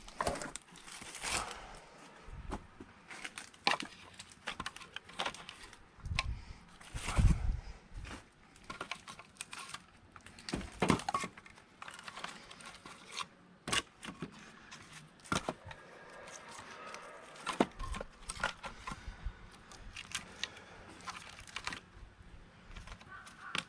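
Firewood being split and handled with an axe: irregular sharp knocks and clacks of wood, the loudest a deeper thump about seven seconds in.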